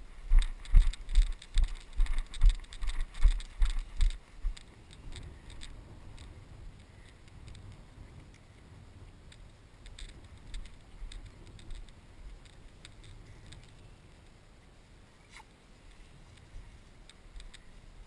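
Footsteps swishing through knee-high wet pasture grass, with a quick rhythmic thumping of about three steps a second for the first four seconds or so, then a quieter steady rustle of grass.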